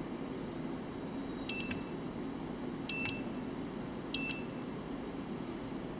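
UNI-T UT61B digital multimeter beeping three times, short high beeps about a second and a half apart, each one confirming a press of the RANGE button as the meter is taken out of autorange. A steady low hum runs underneath.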